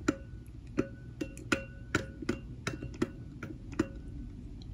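A plastic toy monster truck tapping against the inside of a water-filled bowl, about ten light clicks at two to three a second, each with a short ring from the bowl.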